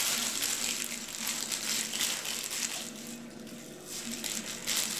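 Plastic freezer bag crinkling and rustling in the hands as it is squeezed to push the air out and twisted shut, easing off briefly a little after three seconds in.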